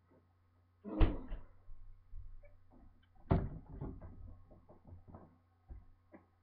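Two loud thumps, about one second and three seconds in, each followed by a run of lighter knocks and clicks: household handling noises, such as a cupboard or door being opened and shut.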